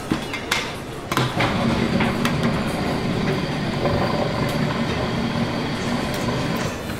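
Robot Coupe commercial cutter mixer: a few clicks and knocks as its lid is fitted, then its motor and blades running steadily from about a second in.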